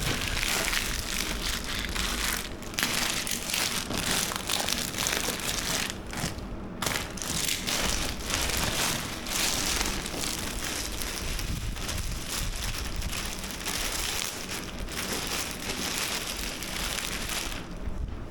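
Packaging being handled, with plastic wrap crinkling and rustling in dense, uneven crackles that pause briefly about six seconds in.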